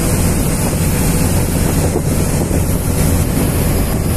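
Ferry boat's engine running with a steady low drone, water rushing past the hull and wind buffeting the microphone.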